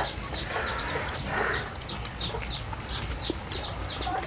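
Birds chirping: a quick run of short, high, falling chirps, about three or four a second.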